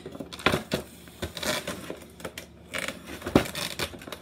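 Cardboard toy blaster box being handled and pried at: irregular scraping and crinkling with several sharp knocks, the loudest about three and a half seconds in.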